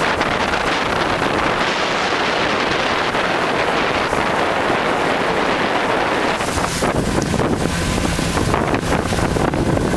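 Wind buffeting the microphone on a moving motorboat, with rushing water and engine noise underneath. The low rumble grows heavier about two-thirds of the way through.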